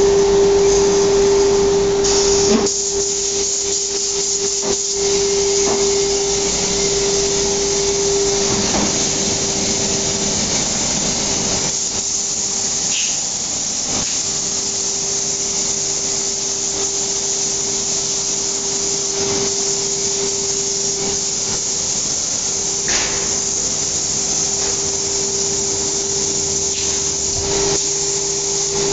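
Cabinet-making CNC router with dust extraction running: a steady whine over a constant rushing hiss of air, with a few faint brief knocks.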